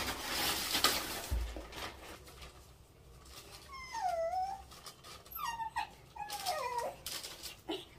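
Plastic bag rustling for the first couple of seconds, then a small puppy whimpering: several short, high whines that slide down in pitch, starting about four seconds in.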